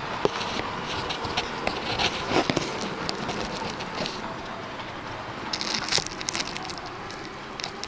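Model train running on a layout's track: a steady rolling rumble with irregular sharp clicks and rattles, bunched about two seconds in and again around six seconds.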